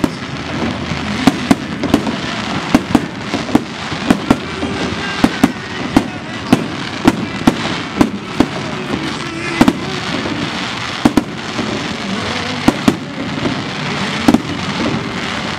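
Aerial firework shells bursting in quick succession, sharp bangs about one to two a second, over a steady background din.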